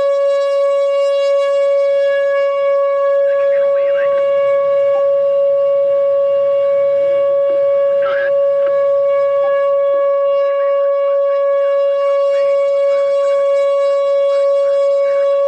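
Whelen 4004 electronic outdoor warning siren sounding a loud, steady, unbroken tone at close range, with no rise or fall in pitch. It is the alert for a tornado warning.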